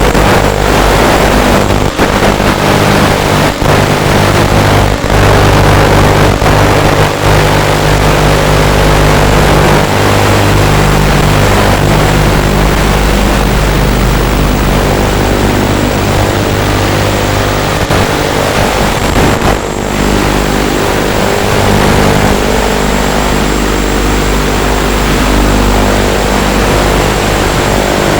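Eachine Racer 250 quadcopter's brushless motors and propellers buzzing under a heavy rushing noise, the pitch shifting with throttle and dropping briefly several times. A thin steady high tone sits above it.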